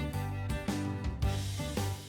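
Background music: an instrumental track with plucked guitar-like notes over a steady beat.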